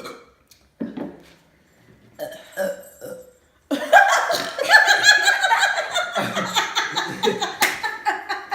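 A few short human burps brought on by chugging soda, then several people laughing loudly from about three and a half seconds in.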